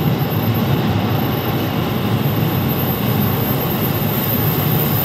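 Long rake of freight hopper wagons rolling past on the rails, a steady rumble of wheels on track.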